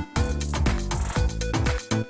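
Background dance music with a steady beat and a heavy bass line.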